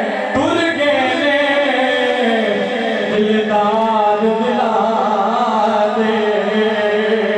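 Men singing a naat, a devotional song in praise of the Prophet, into microphones, with long held notes that waver and glide.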